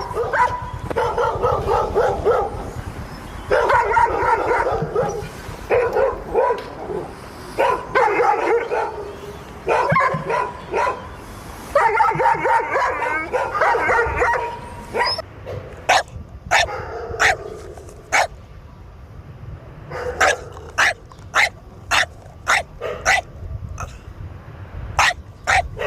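Dogs barking and yapping: rapid, tumbling bouts of barks and yips for the first half, then single sharp barks, roughly one or two a second.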